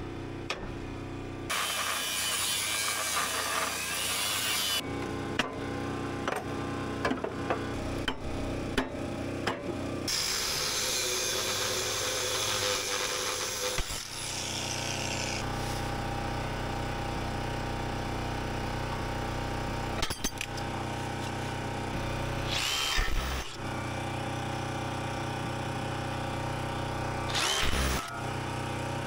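Angle grinder cutting through the rusted rear-axle hardware under an old Ford F-350 frame. The cutting noise is interrupted by a run of sharp metal knocks early on and then carries on steadily, with a few brief louder surges.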